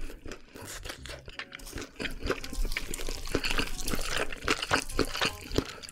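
Chopsticks stirring and lifting saucy, cheese-topped ramen noodles in a ceramic dish: many short, wet, sticky clicks and smacks.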